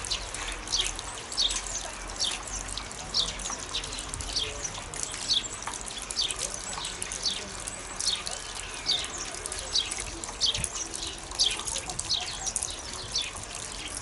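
Sparrows chirping at a winter feeder: a steady stream of short, falling chirps, about two a second.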